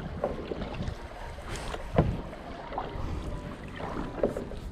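Kayak paddling: paddle strokes and water against the hull, with a sharp knock about two seconds in and some wind on the microphone.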